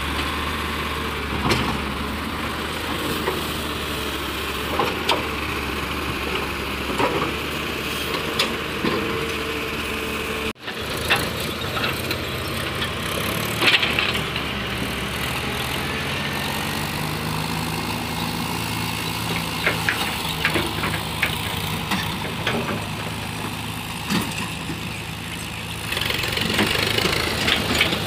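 Diesel engine of a crawler excavator running steadily, with scattered clanks. About ten seconds in it cuts to a farm tractor's diesel engine hauling a loaded trailer, running with rattles and clatter and getting louder near the end as the tractor passes close.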